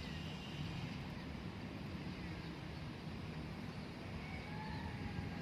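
Steady low outdoor rumble with no clear single source, and a faint thin tone starting about four seconds in.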